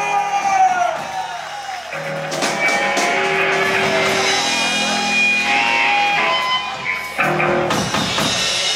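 Electric guitar played live through an amplifier, strumming chords and letting notes ring, with bass notes sustained underneath and a sharp chord stab about seven seconds in.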